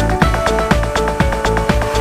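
Background music with a steady beat, about four beats a second, under sustained melodic notes.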